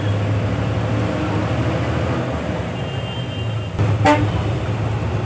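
Bus engine running steadily, heard from inside the cabin, with a short vehicle horn toot about four seconds in.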